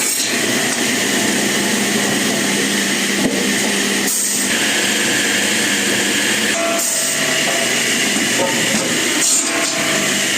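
Woodworking machine running steadily while cutting wood, a continuous loud mechanical drone with a steady hum and whine, briefly dipping a few times.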